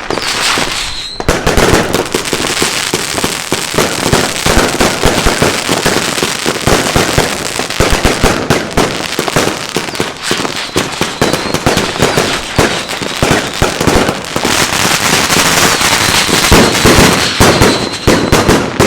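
Iskra Wampir 100-shot 21 mm firework cake firing, a rapid, nearly unbroken string of loud shots.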